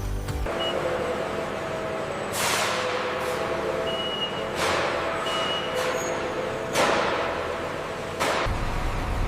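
Machinery hum with four sharp hissing bursts, about two seconds apart, each fading quickly, like compressed air being let off.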